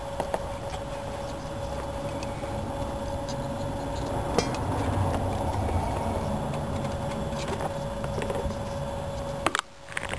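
Light clicks and taps of soldered wires and small tools being handled, over a steady low hum and rumble; the hum drops out briefly near the end, followed by a few more clicks.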